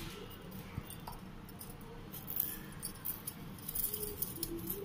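A small knife cutting wedges from a whole amla (Indian gooseberry) held in the hand, making a run of short crisp clicks as the blade goes through the fruit.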